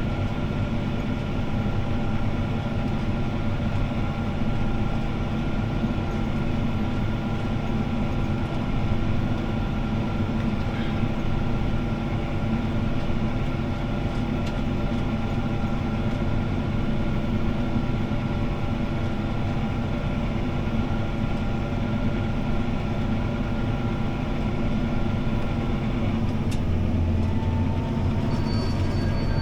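CLAAS ARION 650 tractor's diesel engine running steadily under load as it pulls a disc harrow, heard from inside the cab, with a strong low hum and several steady whining tones. Near the end the engine note changes, the low hum getting louder and a faint whine rising.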